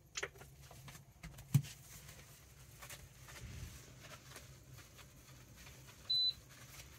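Faint rubbing and handling as cream cleaner is wiped by hand over the glass top of a two-burner induction cooktop, with a knock about a second and a half in. About six seconds in comes one short, high beep from the cooktop's touch controls.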